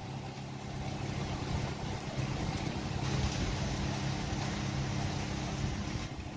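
Motor-driven crusher of a block recycling machine running, which grinds broken cement blocks and bricks back to aggregate: a steady low hum under a rushing grind that grows louder about three seconds in and eases off near the end.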